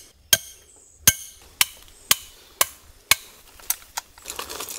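Hammer driving a metal anchor stake for a dog-proof raccoon trap into the ground: about eight sharp, ringing metal strikes, roughly two a second, followed near the end by a short scuffling of hands and trap in the weeds.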